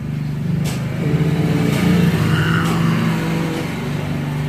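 Domestic cat growling low and steadily in a drawn-out, pulsing rumble: a territorial threat growl at a rival cat.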